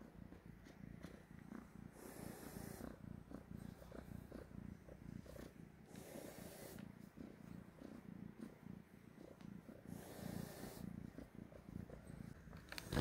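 Tortoiseshell kitten purring faintly and steadily, a fast low pulsing, with a brief louder noise right at the end.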